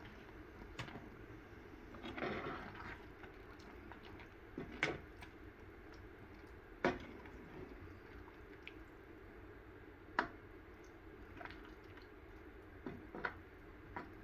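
Thick pav bhaji vegetable mash bubbling in a pan at the boil, with thick bubbles bursting in irregular plops every second or so.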